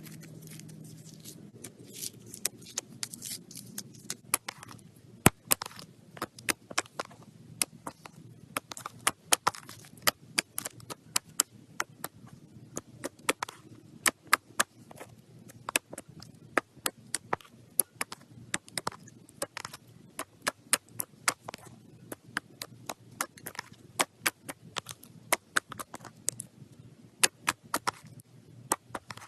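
Slime being played with, giving sharp irregular clicks and pops, a few a second.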